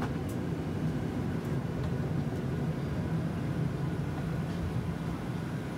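Steady low hum inside the cabin of a parked Boeing 737-800, the aircraft's ventilation running, with a few faint clicks.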